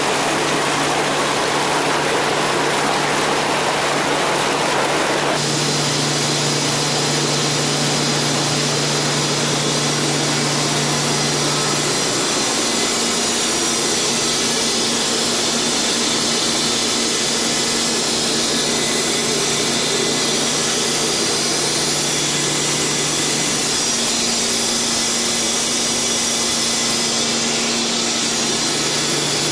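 Steady noise of running pump and aeration machinery with a low hum that shifts in pitch a few times.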